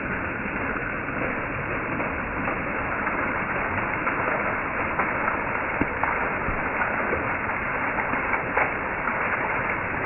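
A small waterfall splashing down a wet rock face in a steady rush, with faint scattered splatters.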